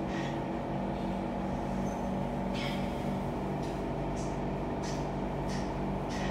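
Inside a Siemens C651 electric train: a steady electrical hum made of several tones, with a string of short hissing ticks starting about two and a half seconds in.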